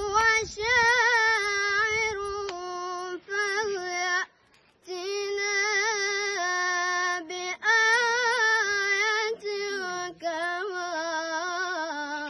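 A boy's high voice reciting the Quran in melodic tajweed style, holding long notes with wavering, ornamented pitch. The recitation breaks off for breaths several times; the longest pause comes about four seconds in.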